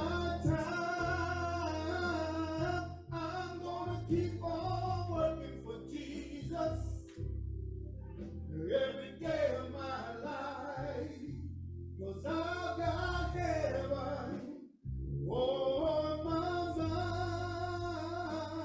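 A man singing a worship song into a microphone in long, held phrases with short breaks between lines, over a low, sustained instrumental accompaniment.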